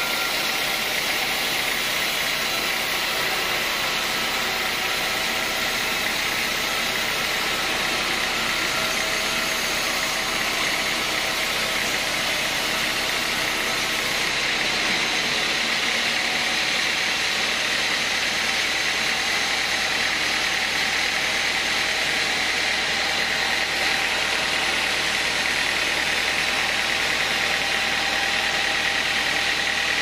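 Band sawmill cutting lengthwise through a teak log: the blade running in the wood over the saw's drive, a continuous steady noise with a steady high tone in it.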